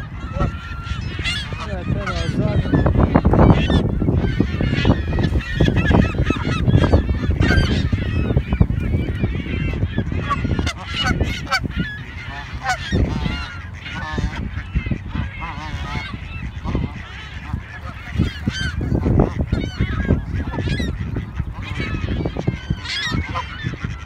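A flock of Canada geese honking, with many overlapping short calls from the surrounding waterfowl and gulls. A loud low rumble of wind on the microphone rises and falls underneath.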